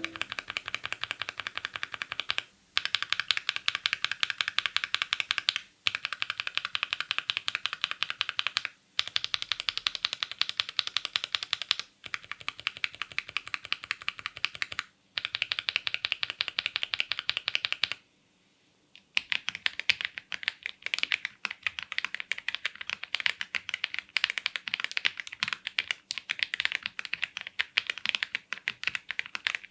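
Fast, continuous typing on a mechanical keyboard fitted with Epomaker Budgerigar tactile switches: dense rapid clacks of keys bottoming out. The typing comes in runs of a few seconds with brief breaks between them, and stops for about a second near the middle.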